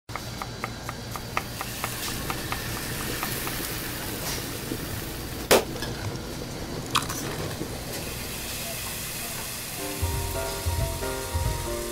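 Food sizzling and crackling in a hot pan, with two sharp clicks in the middle. Background music with a low beat comes in near the end.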